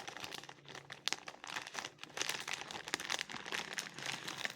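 Plastic Doritos chip bag crinkling as it is handled, in irregular crackly rustles.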